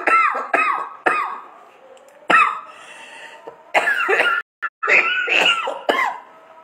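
A man coughing in a fit: three coughs in quick succession, another a little past two seconds in, then a rapid string of coughs from near four seconds to about six.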